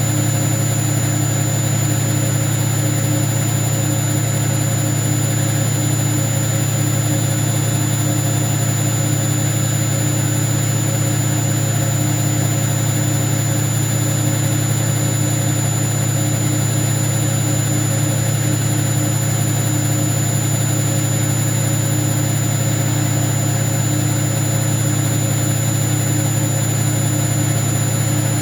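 Hoover washing machine running with a loud, steady low hum and a faint regular pulsing, no knocks or changes; the owner calls the machine 'impazzita', gone haywire.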